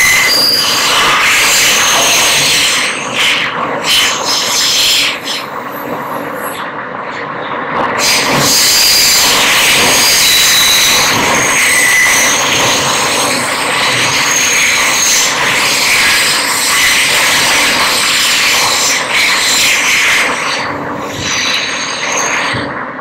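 Loud running noise of an R160 subway car moving through a tunnel: wheels rumbling on the rails with high squealing tones. It eases off for a few seconds about five seconds in and again near the end.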